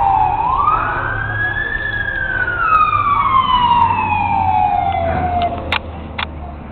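Emergency vehicle siren wailing in a slow rise and fall: a short fall, a climb, then a long slow fall that fades away near the end. Two sharp clicks come just before the end.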